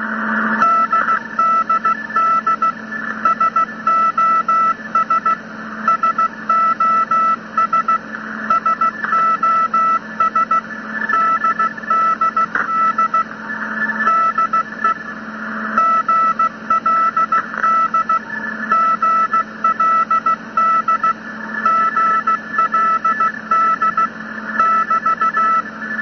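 Morse code heard over a marine radio receiver: a single beeping tone keyed in dots and dashes over radio hiss and a steady low hum. It is Land's End Radio (GLD) sending DDD SOS DDD, the DDD bracketing the distress signal because it is relaying a distress message on behalf of another ship, the Toledo.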